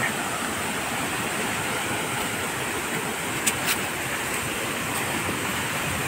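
Steady, even rush of water tumbling over rocks in a stream at the foot of a waterfall, with a couple of faint clicks about halfway through.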